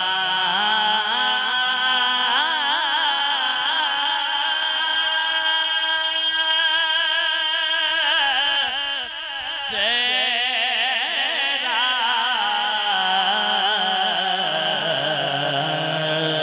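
A man singing a naat unaccompanied into a microphone. Long held notes wavering with ornaments, broken by a short pause about halfway through.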